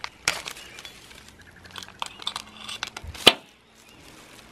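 Kitchen knife cutting open a vacuum-sealed plastic bag on a cutting board: plastic rustling with sharp taps and scrapes of the blade, the loudest a sharp click about three seconds in.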